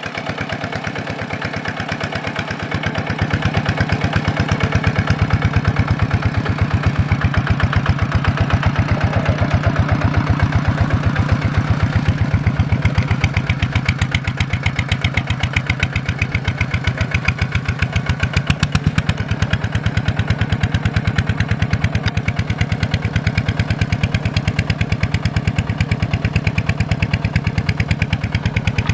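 Tractor engine running steadily at an even speed, with a fast, regular beat of firing pulses; it gets a little louder about three seconds in.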